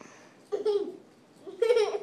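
Two short, high-pitched vocal sounds about a second apart, laugh-like, the second louder with a falling pitch.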